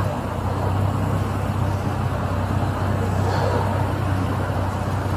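Steady roadway traffic noise with a constant low engine hum from running vehicles.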